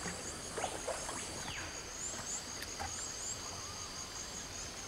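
Faint ambience of a tropical mangrove forest: a short high chirp repeating about twice a second, with a few other faint animal calls over a low steady hiss.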